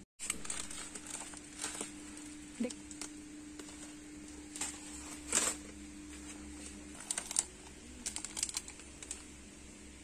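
Scattered light clicks and crinkles of plastic snack packets and a plastic shopping basket being handled, over a steady low hum.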